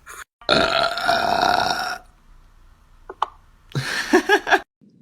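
A man burping: one loud, drawn-out burp lasting about a second and a half, then a shorter second burst near the end.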